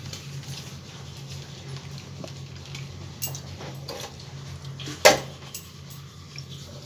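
Steel kitchen pots and utensils being handled: scattered light clinks, then one sharp metallic clank with a brief ring about five seconds in, over a steady low hum.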